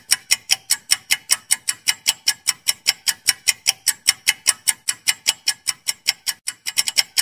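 Countdown-timer ticking sound effect: sharp clock ticks repeating evenly at about five a second, with a quicker run of ticks near the end.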